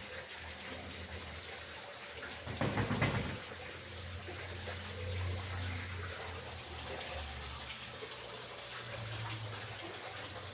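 Moving water with a light breeze, a steady wash of noise over a low rumble. A louder rush rises briefly about two and a half seconds in.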